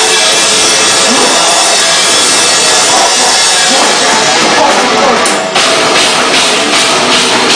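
Heavy rock band playing live and loud, with guitars, drums and a vocalist on a microphone. The sound cuts out for a moment about five and a half seconds in, then comes back with steady, evenly spaced drum hits.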